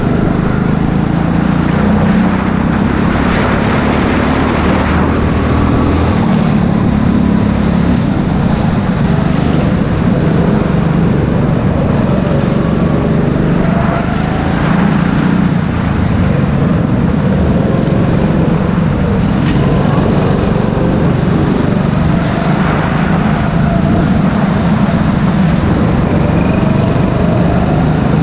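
Go-kart engine running hard, heard from on board as the kart laps the track, its note rising and falling with the throttle through the corners.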